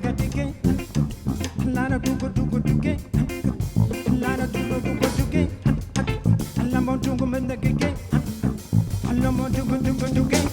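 Live jazz-fusion band playing: electric bass and guitar lines over a drum kit keeping a steady beat of sharp hits.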